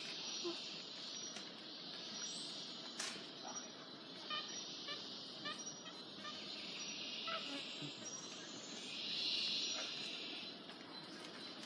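Rainforest insect chorus, a steady high buzzing that swells for a second or so near the end, with a few short bird chirps in the middle.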